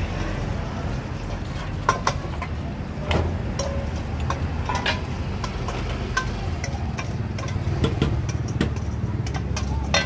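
Irregular clinks and knocks of stainless-steel bowls and a metal ladle being handled, the sharpest about 2, 3 and 8 seconds in, over a steady low rumble of road traffic.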